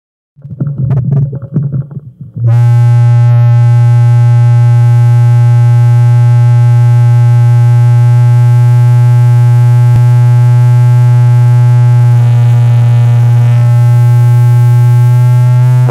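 Noise-music track: about two seconds of ragged, crackly low bursts, then a single very loud electronic drone on one low pitch, held steady with a buzzy stack of overtones.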